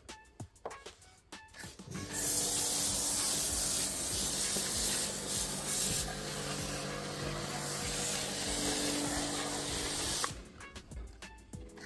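Karcher K7 pressure washer spraying snow foam through an MJJC Foam Cannon S V3.0: a loud, steady hiss of spray over the pump's constant hum. It starts abruptly about two seconds in and cuts off sharply near the end as the trigger is released.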